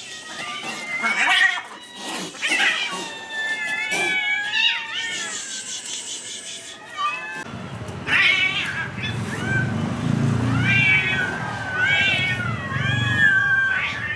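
A crowd of hungry stray cats meowing and yowling over one another, begging for food as they are fed chicken livers. A low rumble comes in about halfway.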